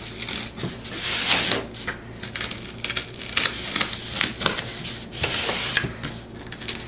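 X-Acto craft knife cutting through the top layer of ultra-thick corrugated cardboard along a curved line: a scratchy, crackling rasp in a run of short strokes.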